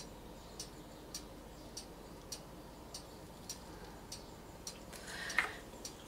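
Faint, even ticking, a little under two ticks a second, with one louder short knock about five seconds in.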